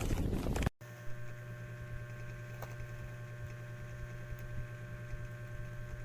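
A brief rush of noise cuts off abruptly under a second in, followed by a steady low electrical hum with a few faint ticks.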